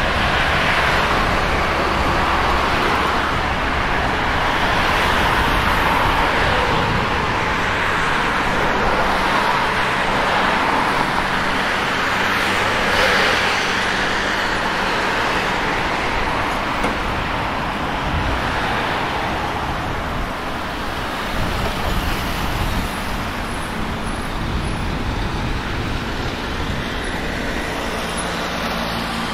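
Steady city road traffic: cars passing on a busy multi-lane street, a continuous rush of tyres and engines that swells as vehicles go by.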